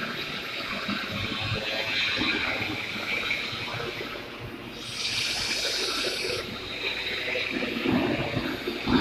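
Argon (TIG) welding, a steady hiss. About five seconds in a brighter, sharper hiss starts abruptly and cuts off about a second and a half later.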